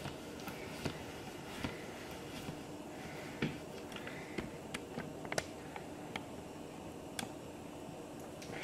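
Pot of tortellini cooking on a gas stove: a faint steady hiss with scattered small clicks and pops, the sharpest ones between about three and a half and five and a half seconds in.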